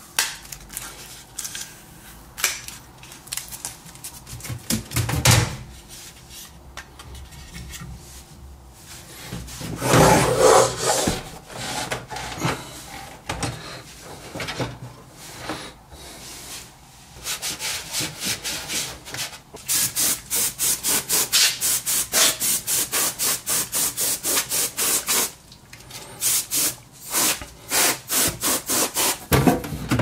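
Hands working inside a desktop PC case: scattered clicks and knocks of parts being handled, then a long run of quick back-and-forth rubbing strokes, about three or four a second, lasting several seconds.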